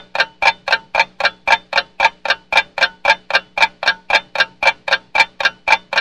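Old mechanical table clock ticking fast and loudly, about four ticks a second, each tick with a short metallic ring.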